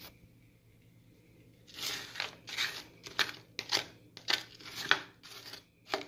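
A spatula stirring and turning stir-fry vegetables in a frying pan: short scraping, rustling strokes about two a second, starting a couple of seconds in.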